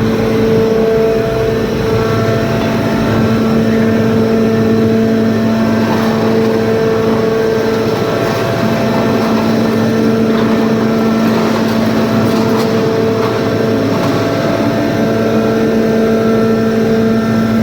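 Hydraulic scrap baler running: a steady machine hum with a constant pitched whine from its motor and hydraulic pump, and some faint clatter over it.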